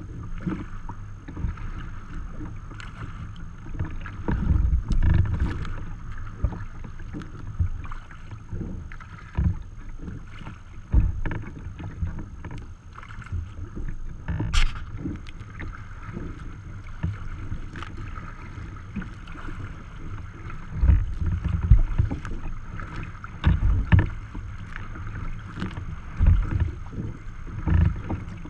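Choppy water splashing and slapping against a sea kayak's hull as it moves through small waves, with wind buffeting the microphone in irregular gusts.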